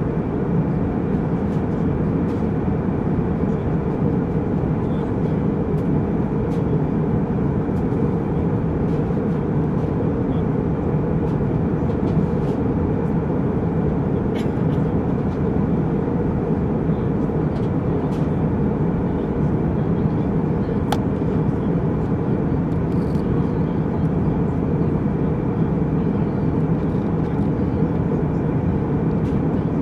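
Jet airliner cabin noise in flight: a steady, deep rumble of engines and rushing air that does not change.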